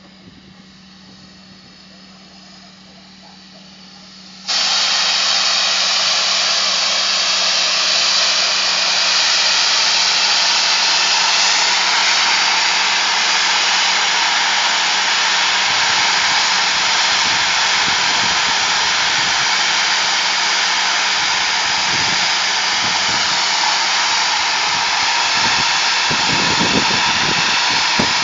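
2-6-0 steam locomotive No. 461 standing at the platform, releasing steam in a loud, steady hiss that starts suddenly about four and a half seconds in.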